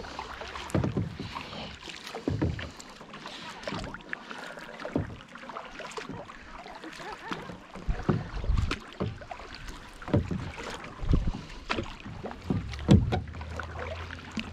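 Kayak paddle strokes: the blades dip and swish through the water every second or two, with low knocks and water lapping against the hull.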